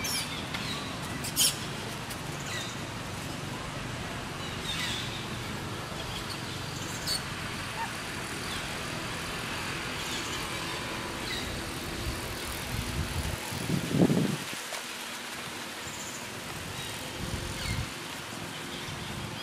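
Steady outdoor background noise with a few short, sharp high-pitched sounds, and a brief low, louder sound about 14 seconds in.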